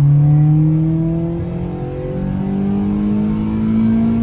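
Honda Prelude's four-cylinder VTEC engine accelerating under load, its pitch rising steadily as the revs climb.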